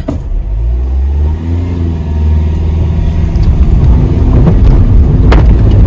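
Hyundai i20 hatchback's engine revving hard under load as it takes a run at a steep, slippery climb where it keeps getting stuck. Its pitch climbs for about a second, then holds in a loud, rough drone, with a sharp knock about five seconds in.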